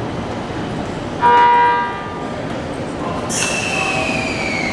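Electric limited-express train sounding one short horn blast about a second in, over its running noise. Near the end a high whine from the train slowly falls in pitch.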